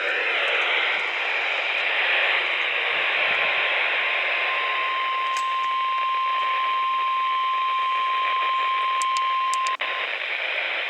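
NOAA Weather Radio receiver hissing with static, then a single steady 1050 Hz warning alarm tone that sounds from about four seconds in for roughly six seconds and cuts off with a click. The tone is the signal that a warning broadcast is about to follow.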